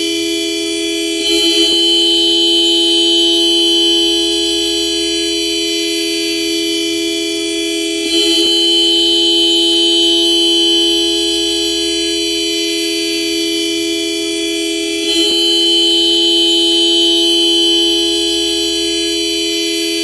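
Car horn held down, sounding one steady pitched tone. It swells louder for about three seconds three times, roughly seven seconds apart, each swell opening with a brief flutter.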